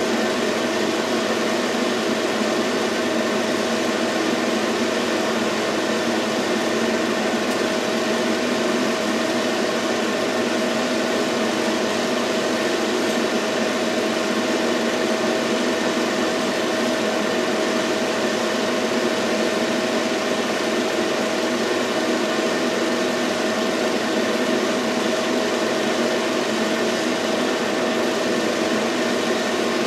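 Steady mechanical whir of a running film projector, with a constant hum tone and no change throughout.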